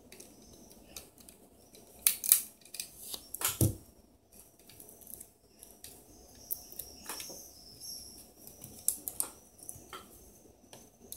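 Small sharp plastic clicks and snaps as a smartphone's circuit board and inner plastic frame are pried apart by hand and with a small screwdriver. The loudest snaps come about two to four seconds in, with lighter clicks later.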